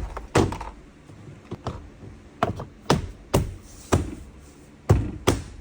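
Irregular sharp taps and knocks on a car door, about ten over a few seconds, the first the loudest.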